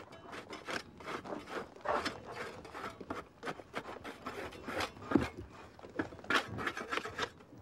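Dry sediment of a trench wall being scraped and picked at by hand: irregular short scratches and crumbling.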